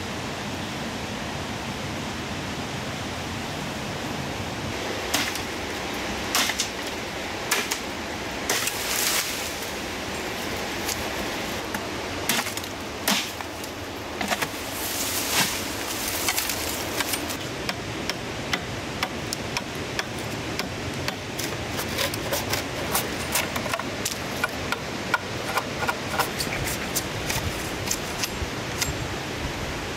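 Steady rush of a river. From about five seconds in, a large knife chops into a green bamboo stalk: separate sharp strikes with bursts of leaf rustle. Later comes a fast run of lighter knife taps and cracks as a cut bamboo section is worked.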